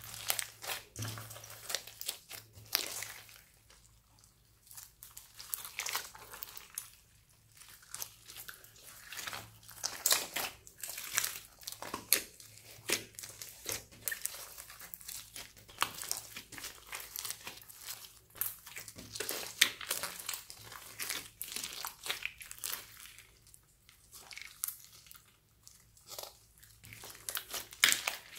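Hands kneading and squeezing a large lump of sticky slime mixed with foam beads, making irregular wet crackles and pops.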